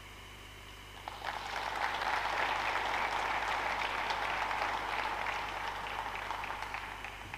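Audience applauding. The applause starts about a second in, builds and then fades out near the end.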